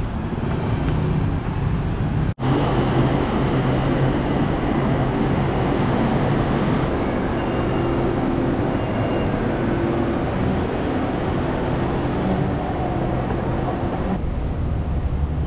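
Steady rumble and hum of a Bangkok BTS Skytrain train at a busy elevated station platform, with two short high beeps in the middle. Near the end it cuts to the hum inside the train carriage.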